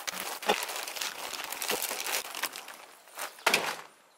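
Plastic zip-top bag and the lure packets inside it crinkling as they are handled, with louder crackles about half a second in and again near the end.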